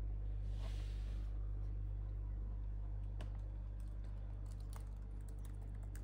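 Typing on a laptop keyboard: scattered key clicks, a few about three seconds in and a quicker run near the end, over a steady low hum.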